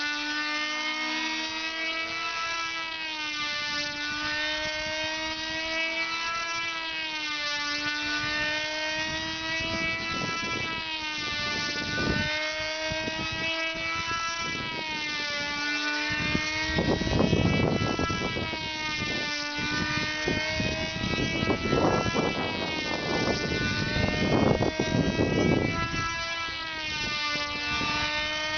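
Small model-airplane engines of control-line combat planes buzzing continuously as the planes fly laps, their pitch rising and falling about every two seconds, with two engines heard at once. In the second half come a few stretches of louder, rough rushing noise.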